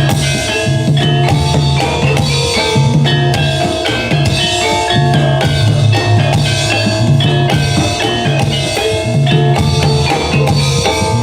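Live music accompanying a reog performance: drums and percussion keep a steady beat with repeated deep bass hits, under held melodic notes.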